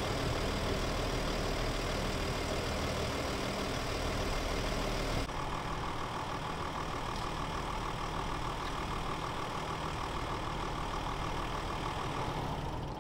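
Parked police crime-scene van's engine idling steadily. About five seconds in the sound cuts to a slightly quieter steady hum with a fast pulsing tone running through it.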